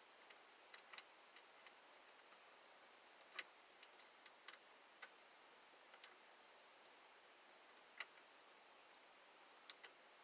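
Near silence broken by faint, scattered small clicks and taps at irregular intervals: metal parts of a steering wheel hub adapter being handled and fitted by hand.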